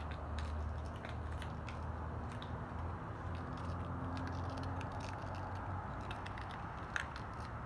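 Steady low hum under a light rushing background noise, with scattered faint ticks and a short higher blip about seven seconds in.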